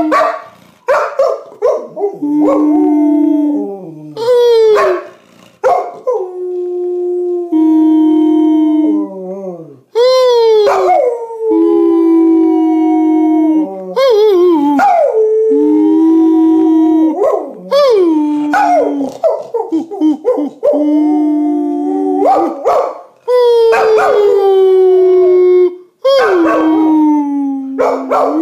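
Springer spaniel howling in a run of long, drawn-out howls, some held on one pitch and others sliding down, broken by brief pauses for breath. A man's voice howls along with it, so that at times two howls overlap.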